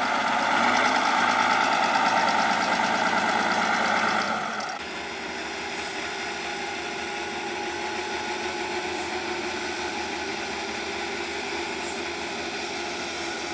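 Diesel engine of a 6x6 trial truck running, loud for the first four seconds or so, then abruptly quieter and steady for the rest.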